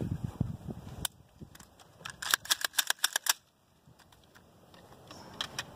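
A quick run of about ten light clicks and rattles from an M4 carbine being handled, about two seconds in, after a few softer handling knocks.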